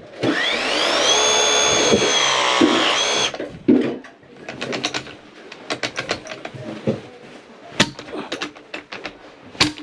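A power tool's motor spins up with a rising whine, runs steadily for about three seconds, then stops abruptly. Scattered clicks and knocks of tools and fittings being handled follow.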